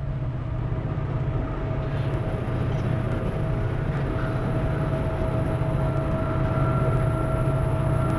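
Steady rumble of an HO-scale model Amtrak passenger train running along the track, with a constant hum over it, growing a little louder as the train approaches.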